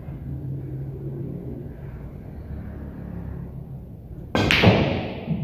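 Low steady rumble of room noise, then about four seconds in a sudden loud rush of noise, with a voice-like sound in it, that fades over about a second.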